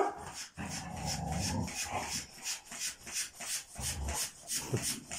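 A hand air pump worked in quick, even strokes, about three hisses a second, inflating the tube of a roll-up jigsaw puzzle mat. Over it a dog growls low, cries out sharply right at the start and gives a short rising whine near the end.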